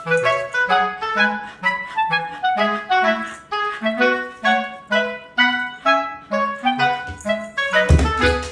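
Background music: a light instrumental tune of short, detached notes over a bass line, with a low thump near the end.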